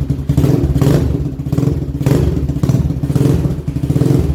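Swapped-in 250cc dirt bike engine in a 1984 Honda ATC200X three-wheeler, running on its factory 200 carburettor with the throttle being blipped, the engine note swelling and dropping every second or so.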